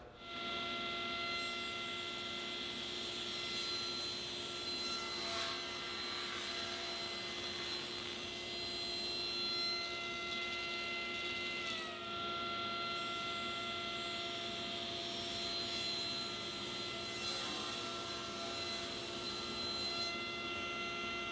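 Cabinet table saw running with a steady whine while it cuts pine door panels to size. The pitch sags briefly about midway as the blade takes the load, then recovers.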